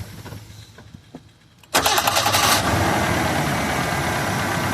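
1996 GMC Sonoma's 2.2-litre four-cylinder engine shuts off, then about a second and a half later is restarted: a burst of rapid ticking clatter while the new starter cranks, and the engine catches within about a second and runs steadily. The owner likens the ticking to a bolt or something hitting and is not sure of its cause.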